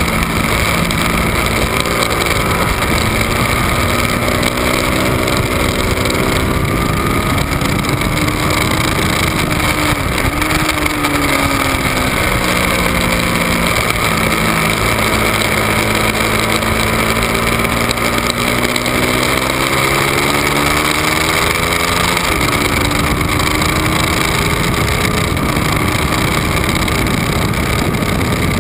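Ducati 1199 Panigale's Superquadro L-twin engine on track at speed, its note repeatedly climbing and dropping as the rider goes on and off the throttle through the gears, with a long fall and climb in pitch through the middle, over a constant rush of wind and road noise.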